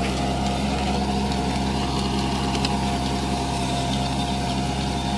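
Kubota mini tractor's diesel engine running steadily while driving a rear rotavator that tills the soil, with a steady whine over the engine note.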